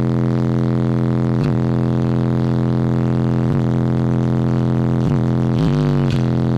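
Subwoofer in a small truck's cab playing a loud, steady, buzzy low bass tone. It dips briefly a few times and wavers in pitch near the end.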